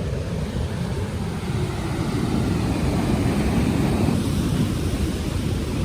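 Surf washing on the beach as a steady low rumbling noise, swelling a little between about two and four seconds in.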